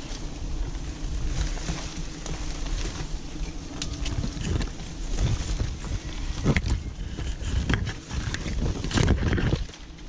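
Low rumble of wind on the microphone with rustling and irregular knocks from climbing among tree branches, the knocks more frequent in the second half.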